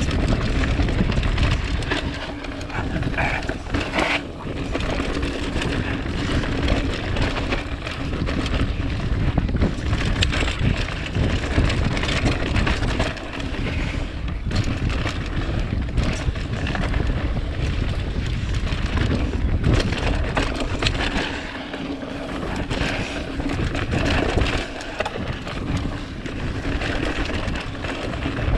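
Mountain bike riding fast down a dirt trail: tyres rolling over dirt and rocks, with the bike rattling over bumps, under heavy wind noise on the microphone.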